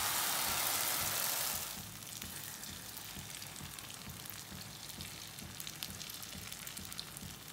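Egg, potato and aubergine batter frying in hot oil in a nonstick pan: a loud sizzle as it goes in, settling after about two seconds into a quieter, steady sizzle with small pops.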